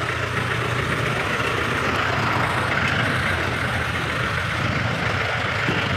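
Jeepney diesel engine running steadily at close range, with the steady hum of street traffic around it.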